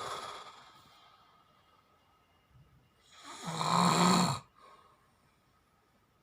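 Snoring during sleep. A breathy breath at the start fades over about a second, then one loud snore with a low buzzing tone comes about three seconds in and lasts about a second and a half.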